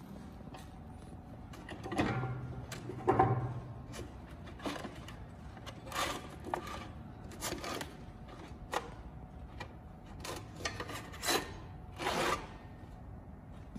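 A belt linisher's abrasive belt and roller mechanism being handled with the motor off, heard as scattered knocks, clicks and rubs as the cloth belt is loosened and slid off the machine. The two loudest knocks come a couple of seconds in.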